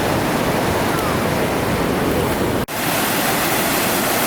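Steady wash of ocean surf breaking on a beach. About two-thirds of the way through it cuts out for an instant and comes back slightly brighter.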